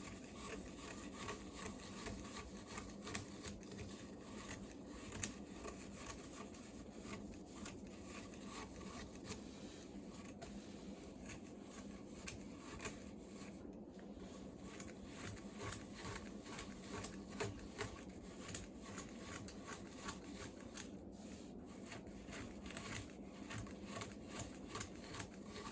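Hemp rope being handled and wound around a cat scratching post: a steady rustle of rope rubbing with many small scraping clicks.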